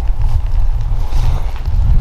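Wind buffeting the microphone, an uneven low rumble.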